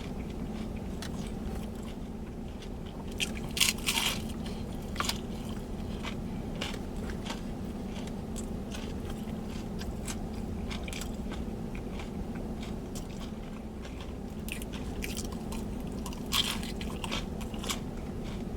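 Crunchy bites into Korean fried chicken and chewing, with sharp crackling crunches clustered about three to five seconds in and again near the end. A steady low hum runs underneath.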